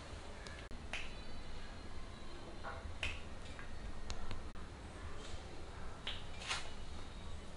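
Hand and finger massage: the fingers being squeezed and pulled give about ten sharp, irregularly spaced clicks and snaps over a faint steady low hum.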